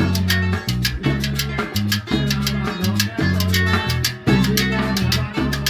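Live salsa band playing: a syncopated bass line under steady percussion strikes and guitar.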